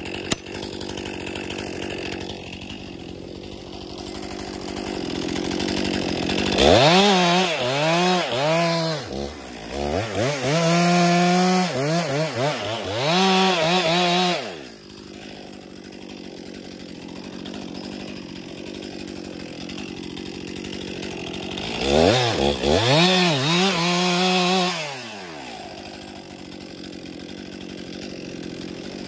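Two-stroke chainsaw idling, then revved up and down hard for several seconds and settling back to idle; a second, shorter run of revving comes near the end before it drops to idle again.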